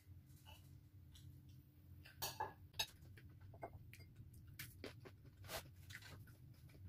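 Quiet eating sounds at a table: scattered light clicks and taps of a spoon and fingers on a plate, a few slightly louder ones about two seconds in and again near the end.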